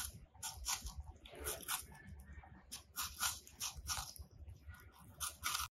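Two rabbits biting and chewing a whole raw apple, a steady run of crisp crunches at about three a second.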